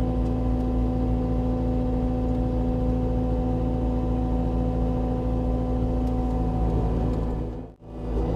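Vehicle engine running steadily at a constant pitch with a low rumble. It cuts out for an instant near the end, then resumes unchanged.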